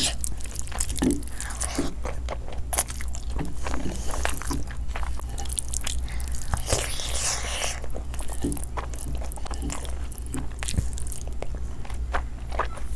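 Close-miked eating: a person biting and chewing pieces of fried chicken leg in thick curry, with many small wet mouth clicks throughout and a low steady hum underneath.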